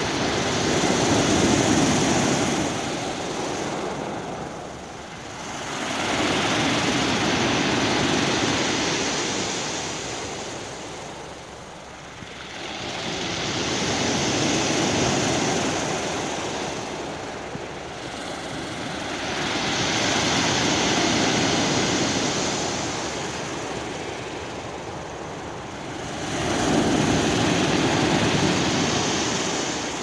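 Sea waves breaking and washing up a round-pebble (mongdol) beach, one wave about every six seconds, each surge swelling and then fading.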